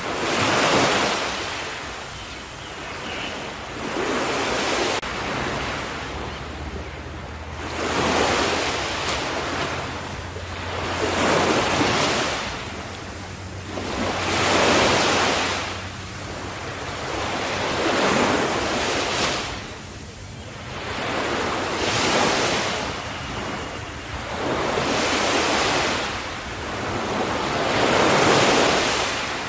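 Ocean waves breaking on a shore, about one every three to four seconds. Each is a rush of surf that swells and falls away.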